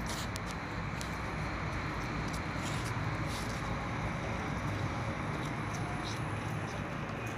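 Steady rushing noise with a few faint ticks as a CPD10E electric forklift drives and turns on concrete.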